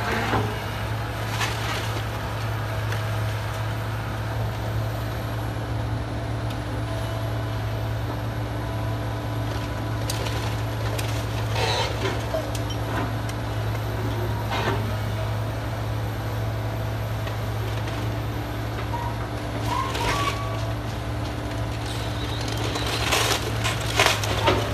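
Hydraulic excavator's diesel engine running with a steady low drone while its arm tears into a wooden house, with sharp cracks and crashes of splintering timber and falling debris every few seconds, a cluster of them near the end.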